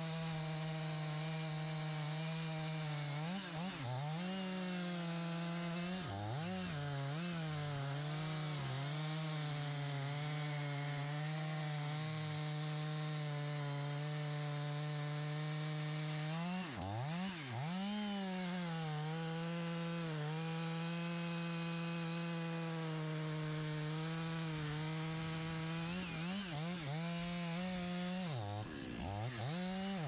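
Gas chainsaw running at high revs, bucking a felled oak trunk into rounds. Its pitch holds steady and dips and recovers several times.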